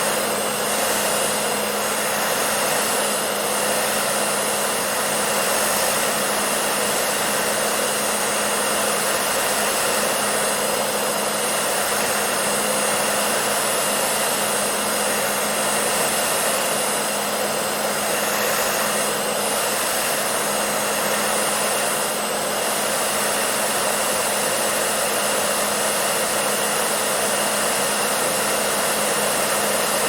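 Hair dryer running steadily: an even rush of air with a steady low hum underneath and a faint high whine.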